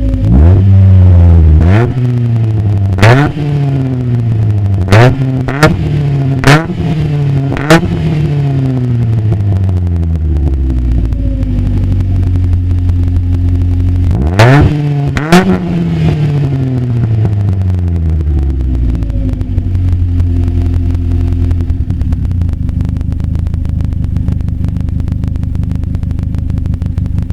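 Straight-piped Mazda 626's 2.0-litre FS four-cylinder engine, its exhaust open 2-inch pipe, being free-revved in quick blips: about seven in the first eight seconds and two more about halfway through. Each sharp rise cracks loudly at the top and then falls back slowly. It settles to a steady, loud idle for the last third.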